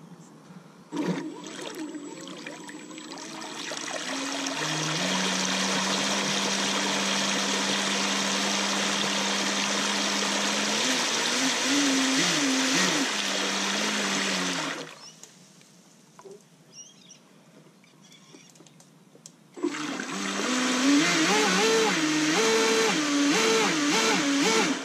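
Radio-controlled jet boat's battery-powered motor driving its water-jet pump in a pump-pressure water test, the jet of water spraying and splashing across the pool with a steady motor whine under the hiss. It runs until about 15 seconds in, stops, then starts again about five seconds later with the whine wavering up and down as the throttle is worked.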